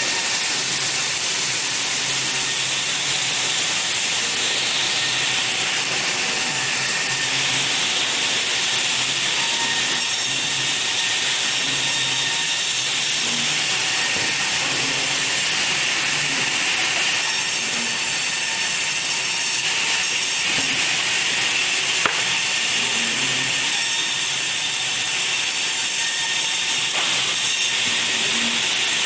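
Sawmill saw cutting through wood, a steady high-pitched noise, with one sharp click about three-quarters of the way through.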